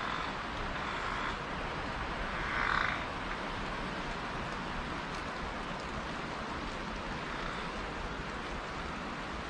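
Forest ambience: a steady rush of wind through pine trees, with a few short animal calls in the first three seconds, the loudest about two and a half seconds in.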